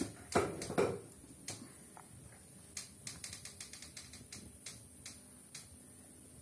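Irregular light clicks and ticks, a cluster of louder ones in the first second, then sparser, over a faint steady high hiss.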